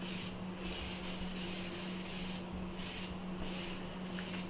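A crumpled tissue rubbed back and forth over an oil-coated sheet of paper, wiping off the excess oil: repeated papery swishes, a few strokes a second, over a steady low hum.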